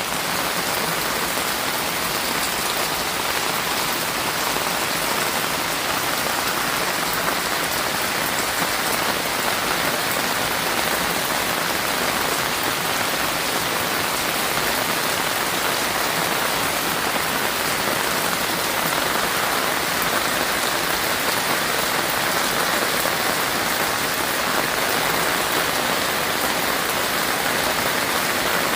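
Heavy rain falling steadily and densely, an even wash of drops with no thunder.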